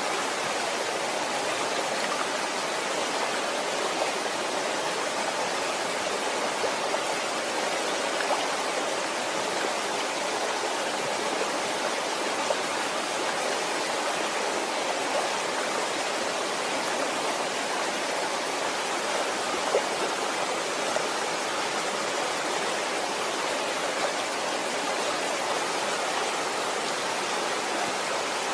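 Waterfall: water falling and splashing in a steady, even rush, with small splashes standing out now and then.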